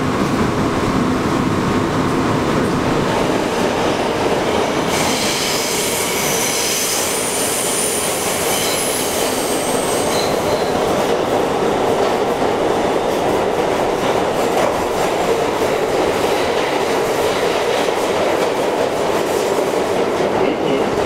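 Inside an R179 subway car running between stations: the steady noise of steel wheels on the rails and the car's running gear. A high-pitched wheel squeal comes in about five seconds in and fades out around ten seconds in.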